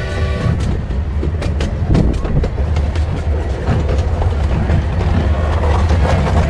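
Ride in a small open-air park train: a steady low rumble of the cars rolling along the track, with irregular clicks of the wheels over the rails. Background music cuts off about half a second in.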